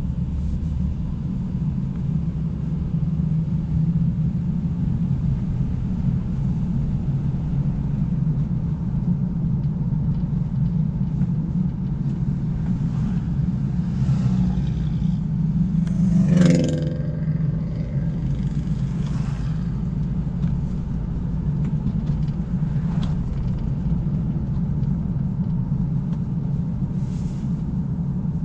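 A car driving on a paved road, a steady low rumble of engine and tyre noise. A little past halfway it swells briefly louder with a short tonal whoosh, then settles back to the steady rumble.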